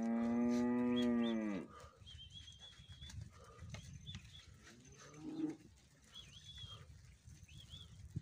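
A calf bawling once, a long moo that drops in pitch as it ends about a second and a half in. Small birds chirp after it, and a shorter, fainter low call comes about five seconds in.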